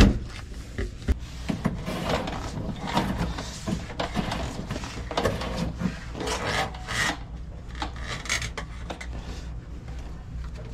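Irregular rubbing and scraping as hands, sleeves and gear are moved about, in several rasping strokes of about a second each, with no motor running.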